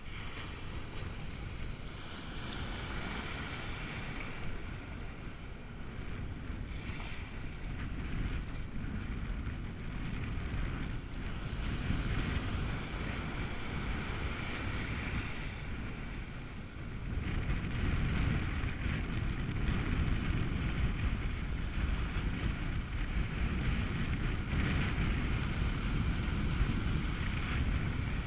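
Wind buffeting the microphone over small waves breaking and washing up a sandy beach. The wind rumble gets louder a little past halfway.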